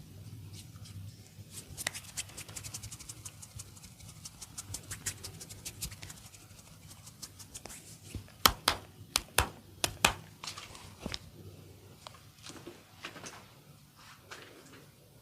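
Hands tapping rapidly and lightly during a massage, a fast run of light taps, then about six much louder, sharp snaps a few tenths of a second apart.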